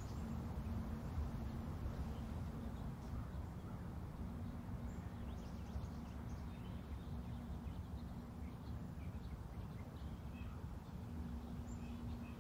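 Quiet outdoor background: a low steady rumble with a faint hum, and a few faint bird chirps.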